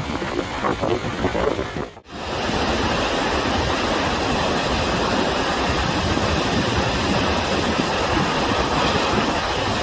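Water released over an arch dam's crest spillways in a curtain-like 'sudare' discharge, pouring down the concrete face as a steady rushing of falling water. The sound drops out for a moment about two seconds in.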